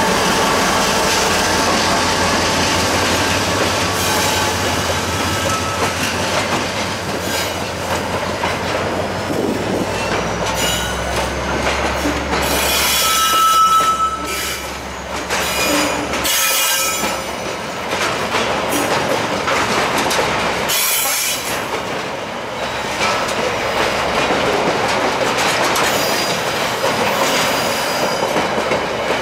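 Container freight train's wagons rolling past close by: a steady rumble of steel wheels on rail with repeated wheel clicks and short, high wheel squeals about halfway through. The hauling diesel locomotive's low hum fades away in the first half as it moves off.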